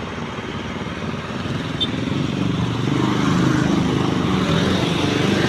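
Old diesel bus engine pulling away under throttle with its growling, rattling 'ngorok' exhaust, a fast low pulsing that grows steadily louder.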